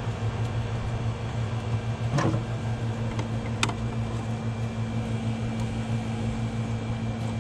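Steady low mechanical hum of a running motor or fan, with a couple of light clicks about two and three and a half seconds in.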